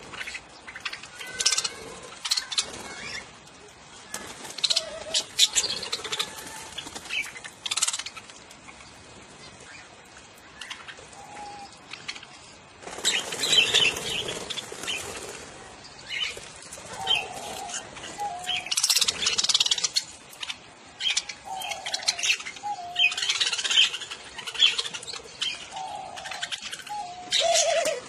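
Budgerigars chirping and twittering in many short, overlapping calls, with bursts of wing flapping a little before halfway and again later as birds fly up and land.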